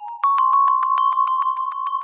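An HTC Rhyme ringtone playing: a bell-like mallet melody of quick repeated strikes, about eight a second, stepping up to a slightly higher note about a quarter second in.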